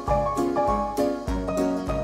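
Instrumental background music with a steady, bouncy beat, a low note struck roughly every half second under quicker pitched notes.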